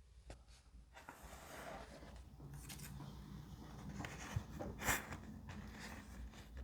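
Paper and craft materials handled close up: rustling and crinkling, with a few sharp taps or clicks, the loudest about five seconds in.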